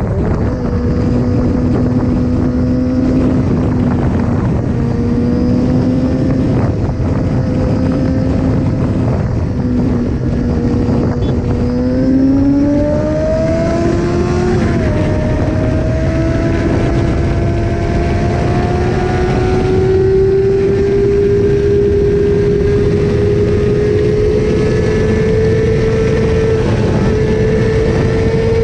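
Kawasaki Ninja ZX-6R's inline-four engine under way, heard from on the bike: it holds fairly steady revs at first, revs up quickly about twelve seconds in, dips briefly, then climbs slowly in pitch as it accelerates.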